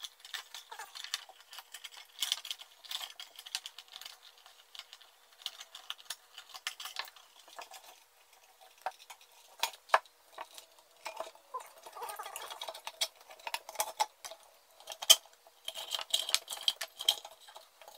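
Lamp cord being pulled back through a metal lamp base and ceramic lamp body: scattered light rustles, ticks and taps as the plastic-insulated wires and lamp parts are handled, with one sharper click about fifteen seconds in.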